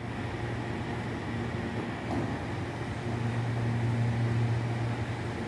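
Electric commuter train pulling slowly into a station platform, a steady low hum that grows louder about three seconds in as it comes closer.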